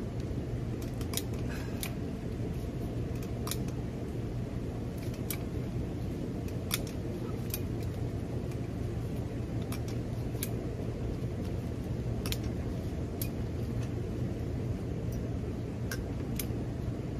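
Hand tube bender working a length of copper refrigerant line: irregular sharp metallic clicks, roughly one or two a second, over a steady low hum.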